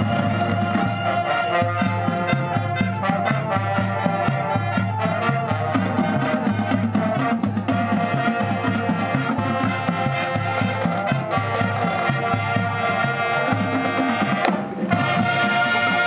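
High school marching band playing, brass to the fore. Near the end the sound drops away briefly, then the full band comes back in louder.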